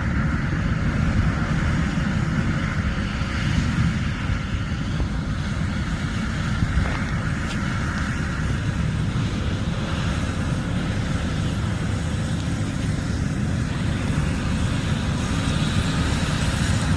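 John Deere S780 combine running steadily while harvesting corn: a continuous low rumble with a band of hiss above it.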